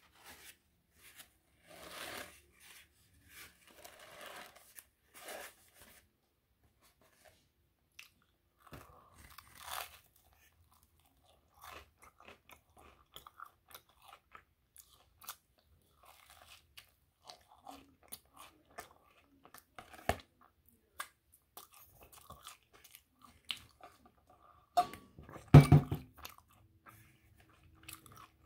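Close-up eating sounds: biting into and chewing toasted English muffin spread with peanut butter and honey, with crunches and wet mouth clicks. One louder thump comes about three-quarters of the way through.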